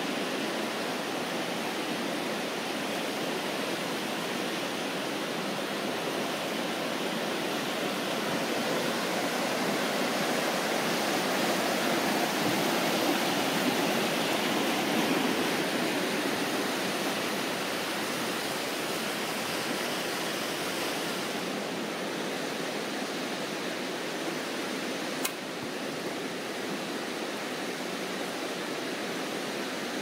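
A fast-flowing river running high with snowmelt: a steady rushing of water that swells a little in the middle. Near the end there is a single sharp click.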